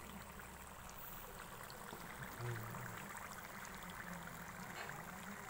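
Spring rolls deep-frying in hot oil in a wok: a steady bubbling sizzle with fine crackles. The rolls are golden brown and done.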